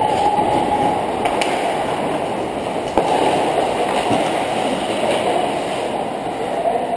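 Ice hockey skate blades striding and carving on the ice, a steady rushing scrape heard through a helmet-mounted camera as the wearer skates, with one sharp click about three seconds in.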